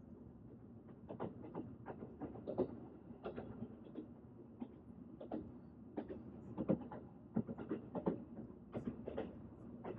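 Train running: a steady low rumble with many irregular clacks and knocks from the wheels and carriage, getting busier about a second in.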